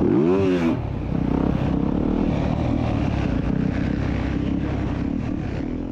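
Motocross bike engine: one quick rev that rises and falls in pitch right at the start, then running at a steady pitch.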